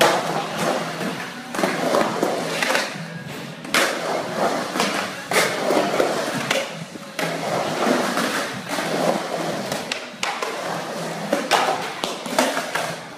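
Skateboard rolling on rough concrete, with the wheels running continuously and repeated sharp clacks and knocks as the board hits the surface and coping.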